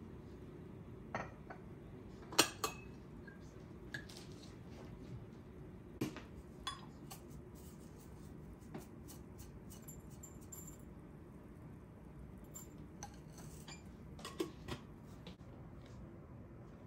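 Light clinks and knocks of glass and metal tea things being handled and set down on a marble countertop: a glass teapot with its glass infuser, a metal tea tin and its lid, a cup and saucer. About a dozen separate clicks come at irregular times, the loudest about two seconds in, over a steady low background noise.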